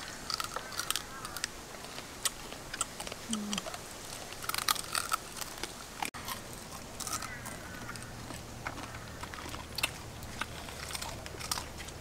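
Cooked crab shells cracking and crunching as they are bitten and chewed, in irregular sharp cracks.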